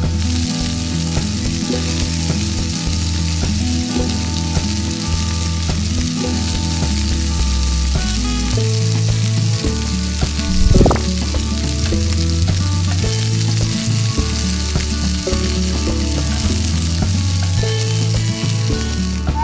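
Beaten egg with diced vegetables frying in a miniature pan, a steady hissing sizzle, with background music underneath and one brief tap about eleven seconds in.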